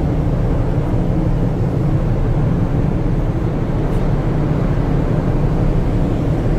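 Steady low rumble of a car ferry under way, heard from its open upper deck: wind buffeting the microphone over the drone of the ship's engines.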